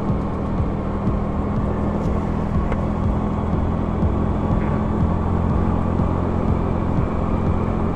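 Motorcycle engine running at a steady cruise, heard from the rider's seat, with road rumble and wind noise. The engine's hum holds an even pitch throughout.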